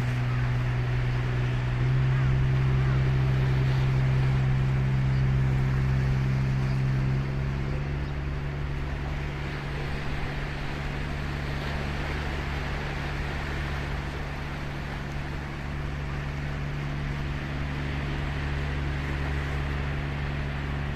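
Steady low engine drone over the wash of surf. The drone shifts pitch twice, about two seconds and about seven seconds in, and is a little quieter after the second shift.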